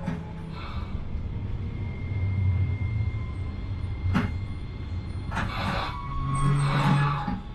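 Streetcar running along street track, heard from inside the cab: a steady low rumble of wheels and motor, with a thin steady whine for a few seconds and a sharp click about four seconds in.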